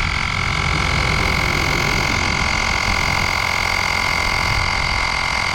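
Xiaomi Mi portable electric air compressor running steadily as it inflates a car tyre: a constant high-pitched whine over a buzzing motor and pump noise.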